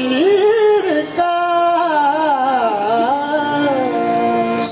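Qawwali: a male voice singing a long, ornamented, gliding melodic line without clear words, with harmonium holding steady notes beneath it from about a second in.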